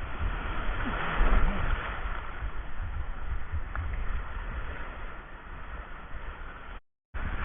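Sea waves washing under steady wind rumble on the microphone. The sound cuts out for a moment near the end.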